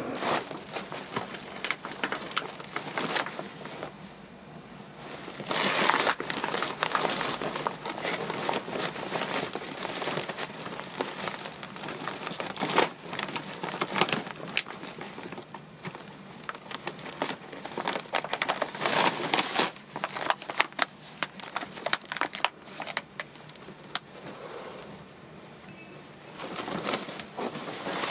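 Plastic bags and sacks rustling and crinkling as they are handled, in irregular bursts with scattered sharp clicks and knocks.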